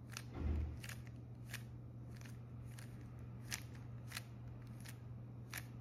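Plastic 3x3 speedcube's layers clicking as they are turned through the H-perm slice moves (M2 U' M2 U2 M2 U' M2): a crisp click about every two-thirds of a second. A low bump just under a second in, over a steady low hum.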